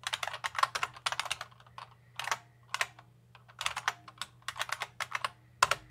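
Typing on a computer keyboard: quick, irregular runs of keystroke clicks broken by short pauses, over a faint steady low hum.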